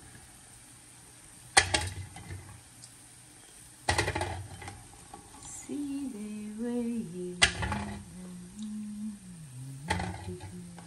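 Metal kitchen tongs clinking against a perforated stainless steel colander four times, a few seconds apart, as fried cassava balls are set into it. From about halfway through, a person hums a slow tune.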